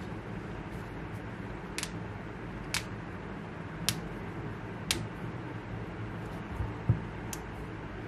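Knuckles cracking: a series of sharp pops about once a second, with a duller, louder knock near the end, over a steady low hum.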